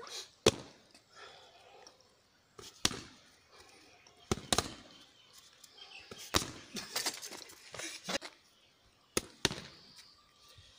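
Boxing gloves striking handheld punching pads: sharp slaps every second or two, several coming in quick pairs as both hands punch.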